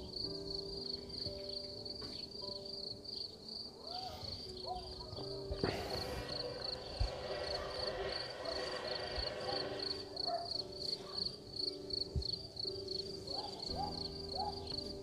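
Honeybees buzzing around an opened hive while a bee-covered frame is handled, with the pitch of single bees bending as they fly close by. A short rustle and knock of the wooden frame comes about five and a half seconds in, and a high, steady insect chirping pulses in the background about three times a second.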